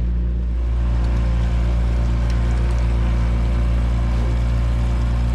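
Boat's outboard motor running steadily at trolling speed, a low, even hum.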